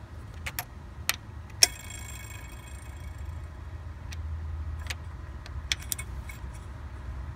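Socket wrench and chrome extension clinking against metal on the engine while working the bolts of the front VTEC solenoid assembly: a few separate sharp metallic clicks, the loudest about a second and a half in with a short ring after it, over a low steady hum.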